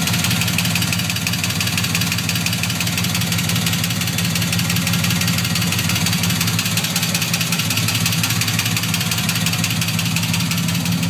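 GM LQ4 6.0-litre V8 idling steadily with a fast, light ticking from the valvetrain. This is the hot-engine lifter tick on the driver's side, which the owner places at cylinder #7. He later traced it to a pinched, chipped oil pickup O-ring starving the lifters of oil.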